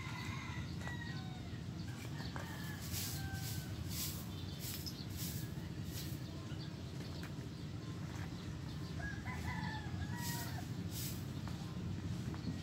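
Broom sweeping a dirt yard in short, irregular swishes, with chickens calling near the start and a rooster crowing about nine seconds in.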